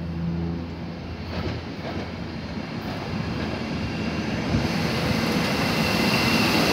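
A SEPTA Silverliner IV electric commuter train rolling into the station past the platform. A steady low hum at first gives way to a rumble of wheels on rail that grows steadily louder as the cars pass, with a thin high squeal near the end.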